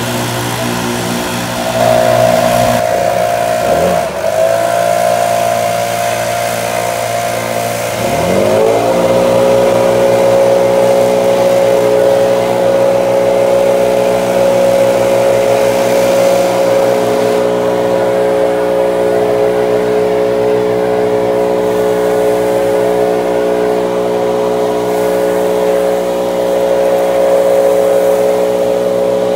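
Gas backpack leaf blower running. Its engine speed dips and picks back up twice in the first eight seconds or so, then holds steady at high throttle.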